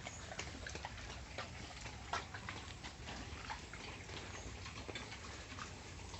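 Pigs in a pen making irregular soft clicks and taps, over a low steady hum.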